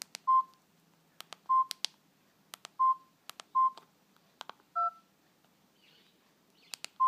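Mobile phone keypad being pressed while typing a text message: sharp plastic button clicks, many with a short keypad beep, six beeps in all. One beep near the middle is a different two-note tone.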